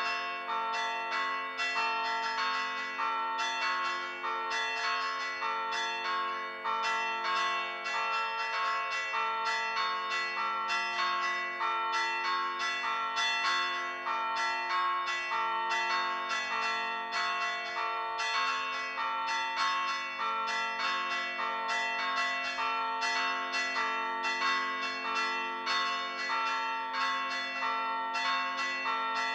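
Church bells played by pritrkavanje: the clappers of several stationary bells are struck by hand against the bell rims. They keep up a quick, even, unbroken rhythm, each strike ringing on under the next.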